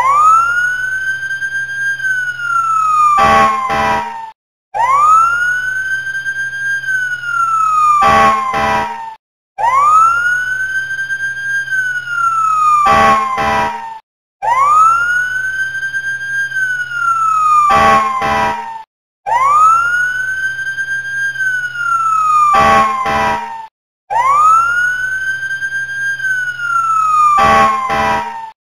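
Looped fire-truck siren sound effect: a wail rises over about two seconds, holds briefly, then falls, with two short blasts as it falls. The cycle repeats about every five seconds, with a brief break between cycles.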